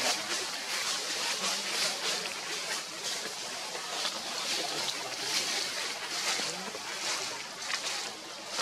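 Steady outdoor ambience: an even high hiss with faint, unintelligible voices in the background.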